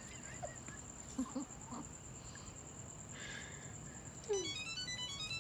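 GPS pet tracker on a dog's harness playing a short electronic melody of quick stepped beeps about four seconds in: the alert it sounds when its location is checked.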